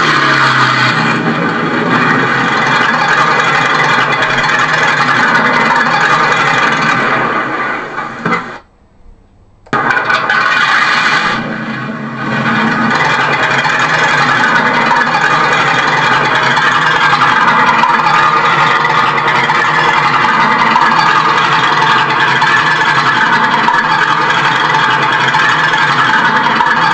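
Engine-like running sound from a 1/6-scale Armortek Panther model tank, loud and steady. About eight and a half seconds in it nearly cuts out for about a second, then starts up again abruptly and runs on steadily.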